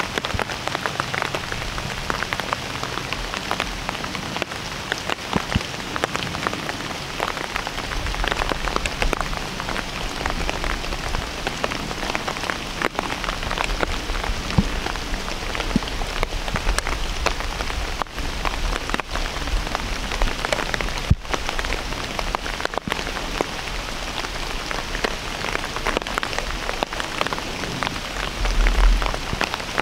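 Steady rain falling, a dense patter of drops, with a brief low rumble near the end.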